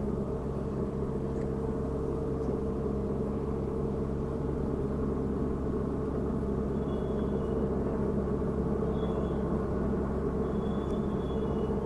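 Steady low rumble and hum of traffic on the elevated toll road overhead, holding at an even level throughout.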